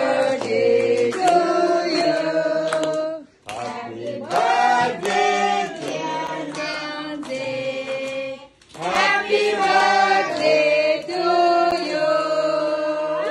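A group of voices singing a song together in held notes, with hands clapping along. The singing breaks off briefly twice, about three and a half and eight and a half seconds in.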